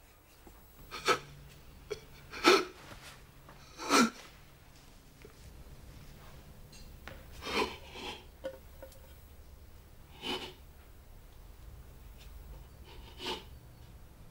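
A man crying in choked, gasping sobs, about six spaced a few seconds apart; the first three, in the first four seconds, are the loudest, and the later ones are fainter.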